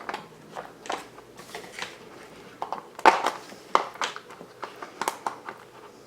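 Small plastic parts and wires of a quadcopter kit being handled: irregular clicks and rustles, the loudest about three seconds in.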